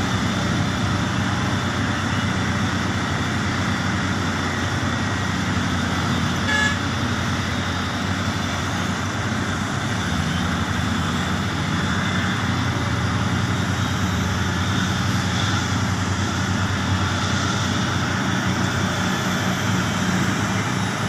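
Heavy mining machinery's diesel engine running steadily, with one short beep about six and a half seconds in.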